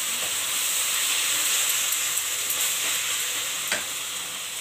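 Shredded cabbage sizzling in oil in a frying pan while a spatula stirs and scrapes through it, with one sharp click from the spatula against the pan about three-quarters of the way through.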